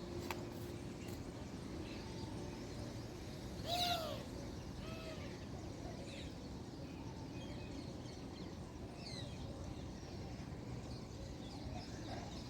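Birds calling: one louder, arching call about four seconds in and a fainter one about a second later, with scattered faint chirps over a steady outdoor background hiss.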